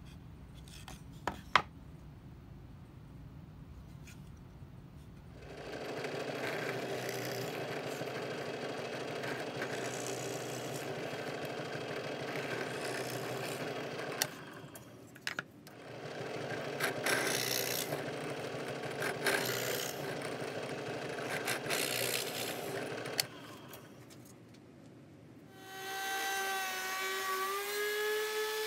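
A couple of sharp knocks from handling the workpiece, then a woodworking power tool running and cutting into walnut in two long stretches with a short pause between. Near the end a handheld router starts, its whine rising slightly in pitch as the motor comes up to speed.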